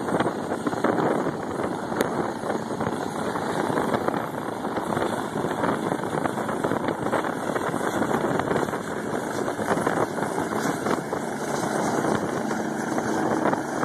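Helicopter turbine engine and rotor running steadily as the helicopter hovers low and sets down on the pad.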